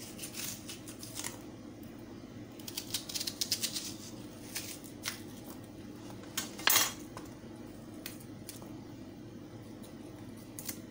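Kitchen knife slicing a red onion into thick rings on a wooden cutting board: scattered crisp cuts and taps of the blade on the board, a quick run of them about three seconds in and one sharper knock past the middle, over a faint steady hum.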